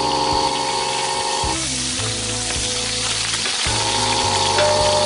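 Oil sizzling steadily as potato pieces fry, over background music of held chords.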